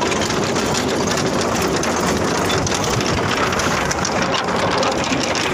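Tractor-drawn potato digger at work: a steady engine with a continuous fast clatter from the shaking grid as soil and potatoes pass over it.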